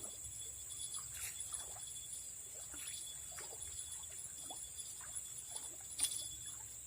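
Faint outdoor ambience: a steady high-pitched insect drone with scattered faint chirps, and a single sharp click about six seconds in.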